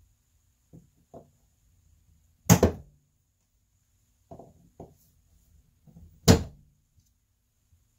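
Hand tools and a piston being handled on a workbench while a piston pin retaining clip is fitted with pliers: a few light clicks and taps, and two loud knocks about four seconds apart.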